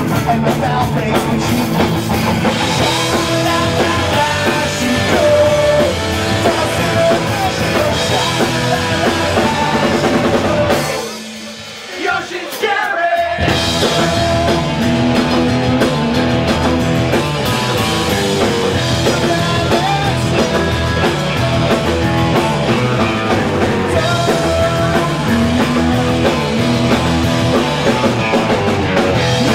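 Punk rock band playing live: distorted electric guitars, bass guitar and a drum kit, with a man singing. About eleven seconds in, the band drops out for roughly two seconds, leaving a thinner sound, then comes crashing back in.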